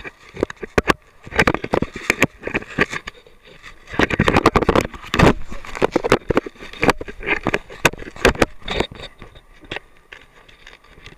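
Handling noise from a dog-mounted action camera in its waterproof housing: irregular knocks, scrapes and crackles as the housing and mount rub and bump against the dog's fur and are handled, densest about four to five seconds in.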